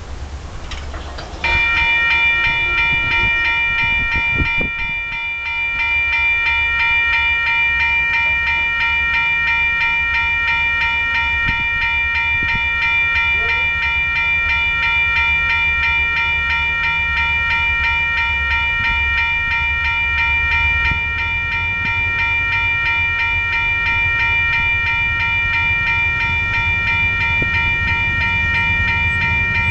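Grade-crossing warning bell switching on abruptly and ringing steadily and continuously. Under it, the low rumble of the approaching train's diesel locomotives grows louder near the end.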